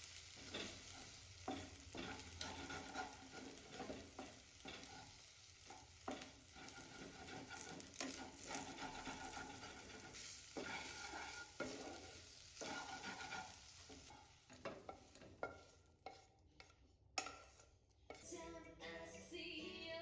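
Eggs and sausage slices sizzling in a nonstick frying pan, with a wooden spatula scraping and stirring them in repeated strokes. Toward the end the sizzle drops away, leaving a few sharp knocks.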